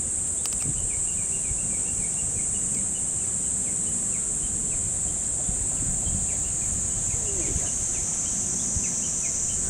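Steady, high-pitched insect chorus droning without a break, with faint short chirps scattered through it.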